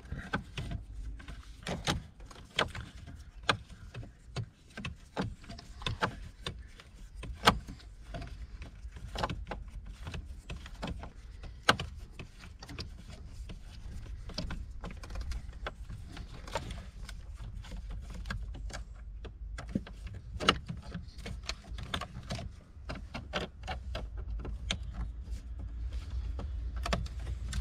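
Hand screwdriver work on dashboard screws and trim by the steering column: a long run of irregular small clicks, ticks and scrapes as screws are turned out by hand, over a steady low rumble.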